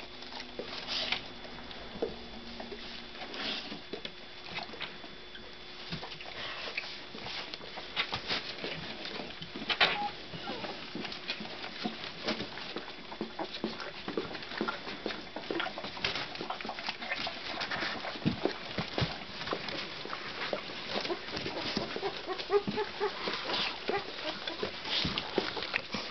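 Thirteen-day-old Labrador puppies crawling over each other and their mother, with a steady run of small scratches and rustles of paws on newspaper and a few short squeaks and grunts.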